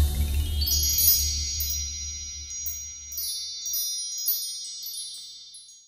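Wind-chime-like tinkling chimes ring in about a second in over a low rumble that dies away, closing the outro music. The chimes fade out to silence near the end.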